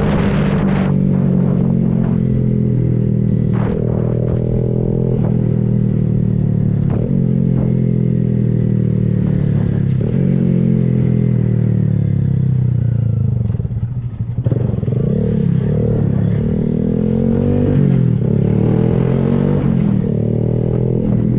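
Honda Grom's 125 cc single-cylinder engine running through an aftermarket Kemimoto exhaust while riding. The engine note shifts in pitch every few seconds, easing off about two-thirds of the way through and then picking up again.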